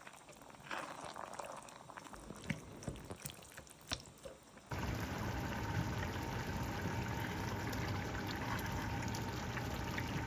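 Light kitchen clicks and handling, then about halfway through a steady rush of water starts suddenly, like a tap running or liquid pouring.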